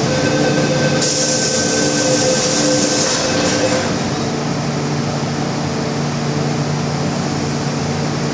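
Inside an MTR Metro-Cammell M-Train car standing at a platform: the car's ventilation and equipment keep up a steady hum while the passenger doors close, with a hiss and a steady tone for about two seconds shortly after the start.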